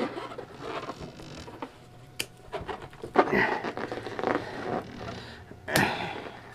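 A rubber balloon being handled and knotted: rubbing and creaking of stretched rubber, with two sharp clicks, one about two seconds in and one near the end.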